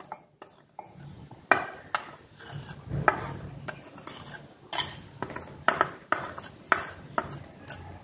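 Steel spoon scraping and tapping against a white ceramic bowl and mug while flour is spooned into the mug, giving repeated sharp clinks at an uneven pace with soft scraping between them.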